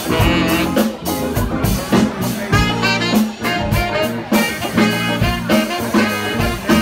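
Live band playing a yacht rock song: saxophone over electric guitar, bass, keyboards and a drum kit keeping a steady beat.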